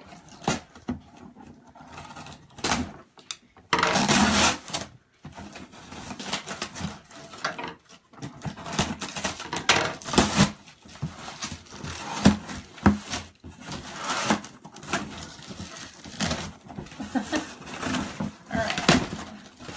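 Cardboard box being cut open with scissors: irregular scraping, snipping and crinkling of the box's packing tape and flaps, with a louder rasping stretch about four seconds in.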